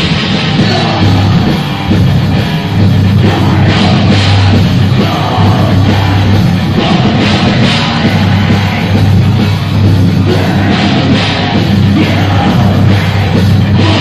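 Black metal band playing live: distorted electric guitar and drum kit, loud and continuous, with harsh screamed vocals over them.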